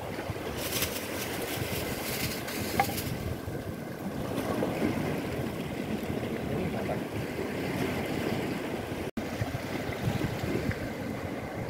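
Sea waves washing against the rocks of a jetty, with wind buffeting the microphone. A short scratchy rustle comes in the first few seconds.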